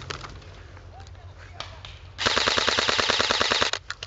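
Airsoft electric gun firing one rapid full-auto burst of about a second and a half, close and loud, starting a little past halfway. Faint scattered shots from other airsoft guns come before it, and quieter rapid fire follows near the end.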